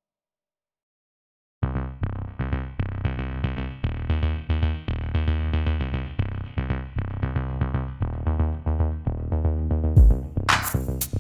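Electronic music with a drum-machine beat, bass and synthesizer, starting suddenly about a second and a half in after silence. Loud hissing hits sweep in near the end.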